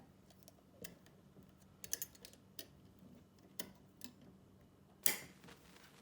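A handful of light, irregular clicks and taps, with a small cluster about two seconds in and the loudest tap about five seconds in.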